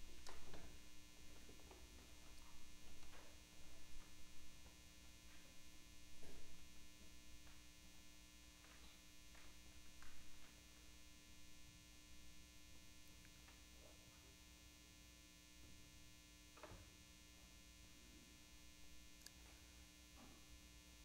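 Near silence: a steady electrical hum, with a few faint scattered clicks and rustles in the first half.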